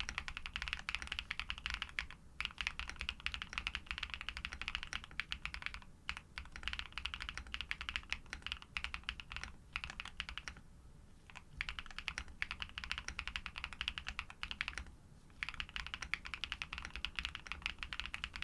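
Fast typing on a Neo80 v2 custom mechanical keyboard with Pado v2 switches lubed with Krytox, a polycarbonate plate, full foam and PBT keycaps. It comes in dense runs of several seconds, broken by brief pauses.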